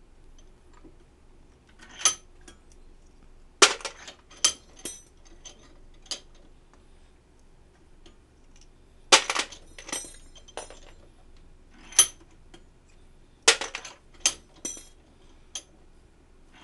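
Metal ammunition belt links and cartridges clicking and clinking as rounds are stripped out of a linked belt: sharp metallic clicks with a brief ring, in short clusters every few seconds.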